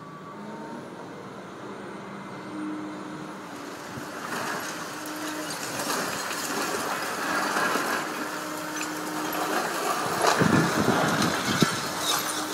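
JCB tracked excavator's diesel engine running as it demolishes a building, with rubble and masonry crunching and falling. From about ten seconds in come several louder crashes of debris coming down.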